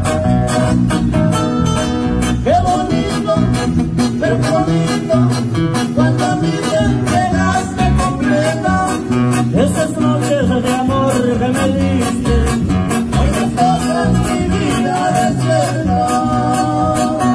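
Regional Mexican band playing live: strummed acoustic guitars over a steady drum beat, with a man singing.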